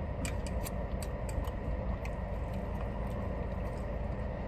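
A few faint clicks and taps of hands handling food in a plastic takeout container, mostly in the first second and a half, over a steady low hum inside a parked car.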